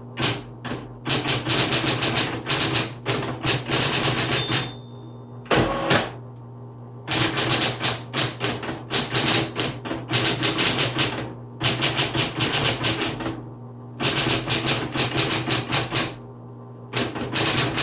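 Smith Corona Coronet Automatic 12 electric typewriter being typed on: rapid key strikes in runs of a few seconds, broken by short pauses, over the steady hum of its running motor.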